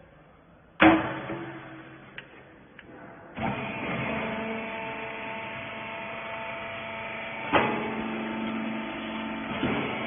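Metal loading lid of a small rag baler banging shut with a loud clang, then the baler's motor starting and running with a steady hum as it compresses rags; another sharp metal clank about seven and a half seconds in.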